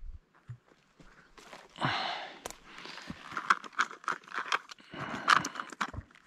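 Close rustling and crackling of gear being handled and of movement on dry grass, with many small sharp clicks. The louder rustles come about two seconds in and again around five seconds.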